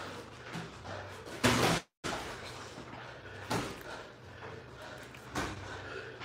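Boxing gloves landing punches during sparring: a few sharp, separate thuds over a low gym background, the loudest about one and a half seconds in, cut short by a brief dropout in the audio.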